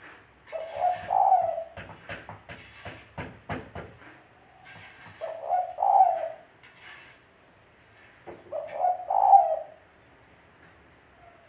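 Spotted dove (tekukur) cooing: three phrases of low, rolling coos a few seconds apart, with a run of sharp clicks between the first two.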